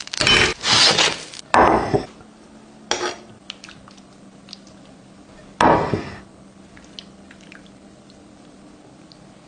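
Kitchen food-prep handling: a few short, loud scraping and clattering sounds of utensils against dishes in the first two seconds, another about three seconds in and one about six seconds in, then faint scattered clicks.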